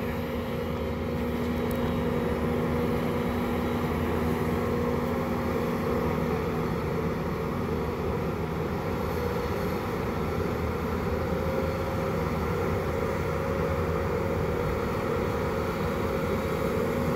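Bobcat telehandler's diesel engine running at steady revs, with a steady whine over its rumble, while the machine carries a raised bundle of logs.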